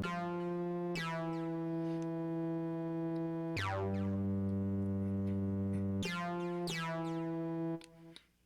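Native Instruments Massive X software synthesizer playing a preset as held, bright notes with a rich, buzzy tone. A new note starts every one to three seconds, each with a bright attack that mellows. The sound cuts out briefly near the end.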